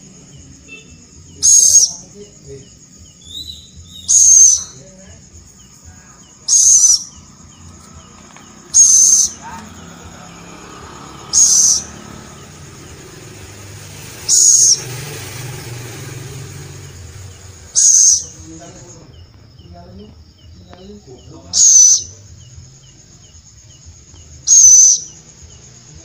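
Young scops owl (celepuk) giving short, high-pitched rasping calls, nine in all, one every two to three seconds.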